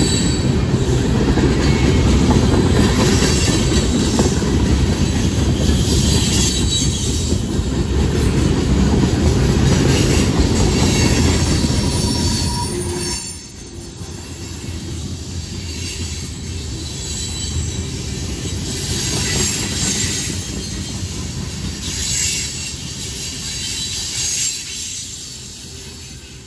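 Freight train cars rolling past on steel rails: a heavy rumble and clatter of wheels on track, with high wheel squeal coming and going every few seconds. The rumble drops to a quieter level about halfway through and fades near the end as the last car goes by.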